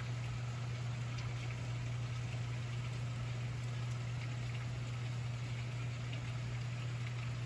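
Heavy rain falling steadily, heard from indoors through a window, with a steady low hum underneath.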